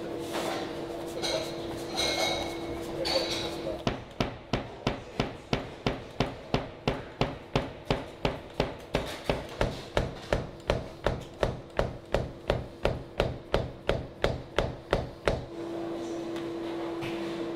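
Large udon-noodle knife chopping through folded udon dough onto a wooden board, knocking steadily at about three chops a second for about eleven seconds before stopping.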